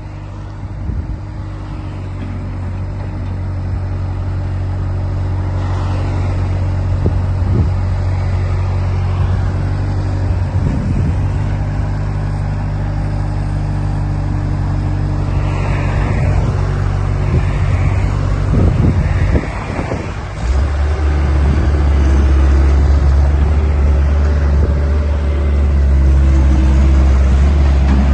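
Bobcat S150 skid steer loader's diesel engine running steadily. About two-thirds of the way in, its note drops lower and gets louder, after a few short noisy bursts.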